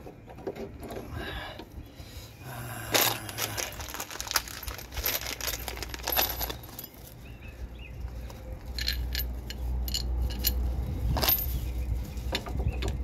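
Small steel bolts and nuts clinking and rattling as they are handled while a new lower ball joint is bolted in, with sharper metal knocks about 3 seconds and 11 seconds in. A low steady rumble sits underneath from about 8 seconds in.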